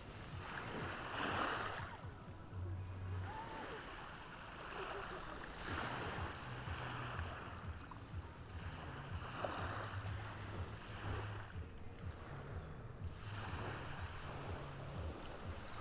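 Ocean waves washing onto the shore, each surge swelling and fading about every four seconds, with some wind rumble on the microphone underneath.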